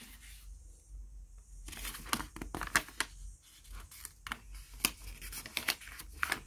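Paper pages of a picture book rustling and crackling as fingers pinch, separate and turn a page. The sound is a run of short, sharp crackles starting about two seconds in.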